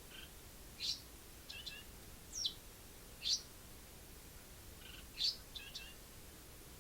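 Pet Eurasian tree sparrow chirping: a string of short, high chirps, roughly one or two a second, some coming in quick little clusters.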